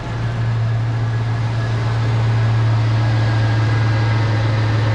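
Dual OEM-style electric radiator cooling fans on a 2003 GMC Sierra running, switched on through the tuning software, over the truck's engine idling: a steady low hum with an even rush of air that grows a little louder over the first two seconds.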